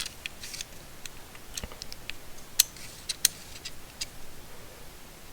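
Scattered light clicks and taps, about eight over several seconds, from handling small plastic push-button switches while measuring them with digital calipers.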